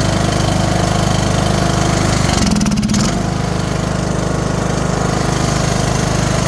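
Briggs & Stratton 18 HP mower engine running steadily after its lifted valve seat was reset, the exhaust valve relapped and the valves adjusted. A brief rough patch comes about two and a half seconds in, then it settles and runs on slightly quieter.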